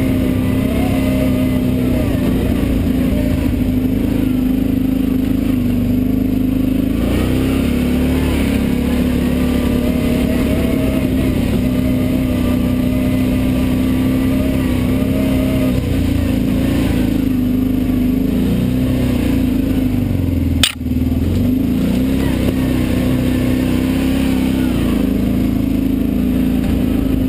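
ATV engine running steadily on a dirt trail, its pitch wavering a little with the throttle. A single sharp click with a brief dip in level comes about 21 seconds in.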